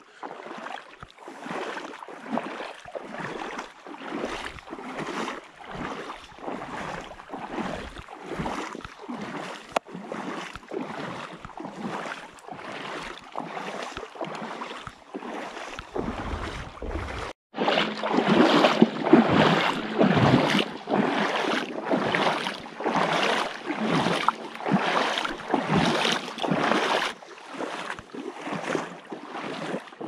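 Footsteps wading through shallow lake water along the shore, each step a splashing slosh at about one step a second. About two-thirds through the sound cuts out for a moment and comes back louder.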